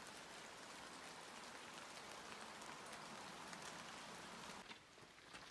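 Faint, steady light rain falling on forest foliage, an even hiss that drops away near the end.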